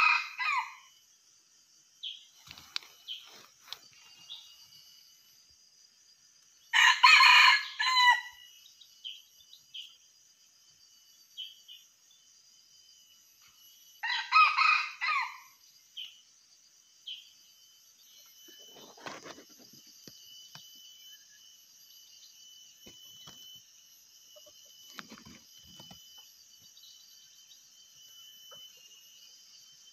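Red junglefowl rooster crowing three times, about seven seconds apart, each crow short, about a second long. A steady high hum runs underneath.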